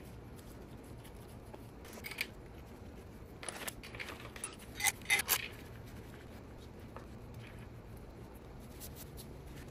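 Light metallic clicks and clinks of steel bolts being threaded by hand into the centre of a Porsche 911 engine's dual-mass flywheel: a few scattered short clicks, the loudest cluster about five seconds in, over a faint steady hum.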